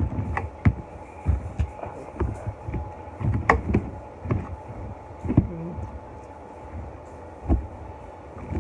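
A person chewing and eating close to the microphone: irregular soft thuds and sharp mouth clicks, over a faint steady hum.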